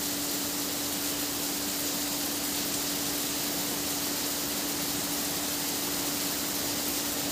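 Rain falling steadily, an even hiss, with a steady low hum underneath.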